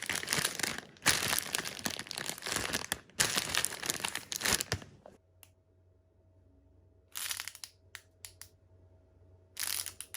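A crinkling, tearing noise in bursts, dense for the first five seconds, then two shorter bursts later on, with a faint steady hum in the quieter gaps.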